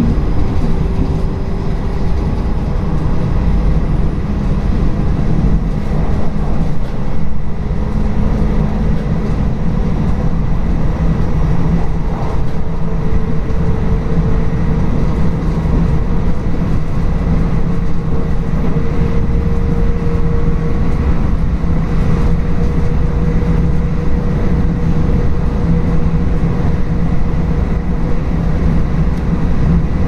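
Train running on the rails, heard from the front of the car: a steady low rumble of wheels on track, with a tone beneath it that slowly rises in pitch.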